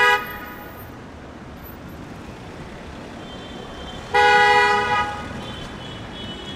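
Car horn honking: the end of one blast right at the start, then a second blast of just under a second about four seconds in, over steady street traffic noise.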